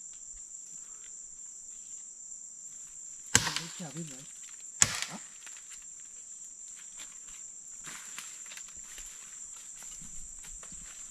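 Two sharp chopping strikes on wood, about a second and a half apart, a few seconds in, over a steady high-pitched drone of rainforest insects.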